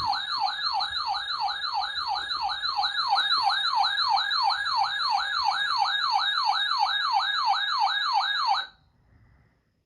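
Electronic siren sounding a fast yelp, its pitch sweeping up and down about three to four times a second. It cuts off suddenly near the end.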